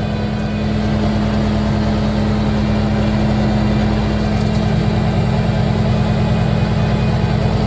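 Tractor engine running steadily, driving a PTO-powered wood chipper, heard from inside the tractor cab as a continuous even hum.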